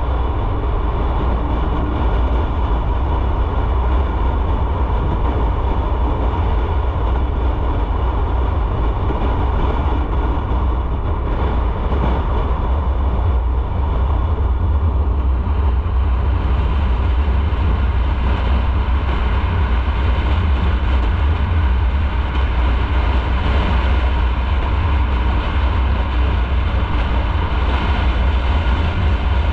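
Motorcycle riding at a steady speed: the engine runs at constant revs under a heavy low rumble of wind and road noise.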